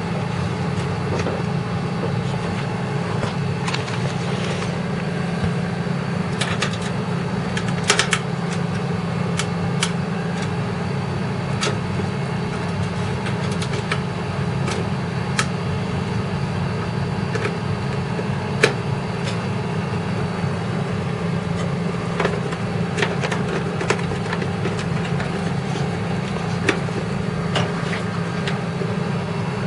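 Scattered sharp clicks and taps of cables and connectors being handled and plugged in inside a desktop PC case, over a steady low background hum.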